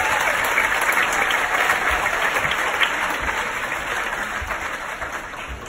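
Cinema audience applauding, a dense clapping that dies down near the end.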